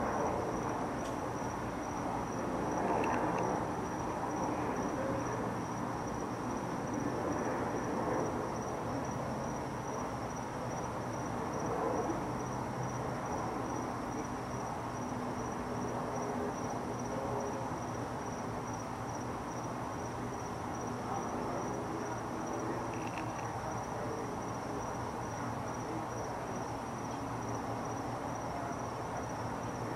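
Steady high-pitched insect chirping over a low background rumble.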